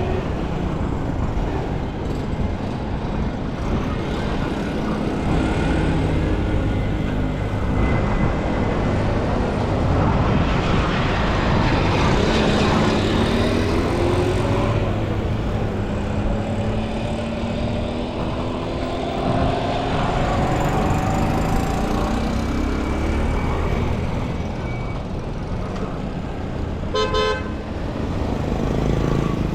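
Street traffic: vehicle engines running and passing, with car horns tooting and a quick run of beeps near the end.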